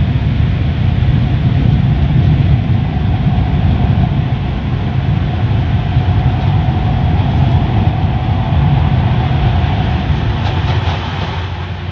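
Automatic car wash tunnel machinery running, heard from inside the car: a loud, steady rumble and rush that eases off slightly near the end.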